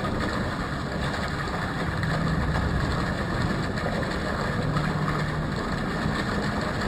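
Steady rumbling outdoor background noise with a faint low hum, without distinct events or bird calls.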